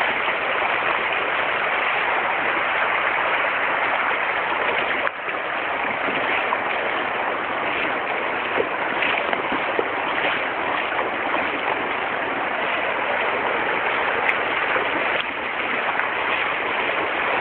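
Fast-flowing floodwater rushing steadily, churning where it breaks over the edge of a road. The sound drops for a moment about five seconds in and again near the end.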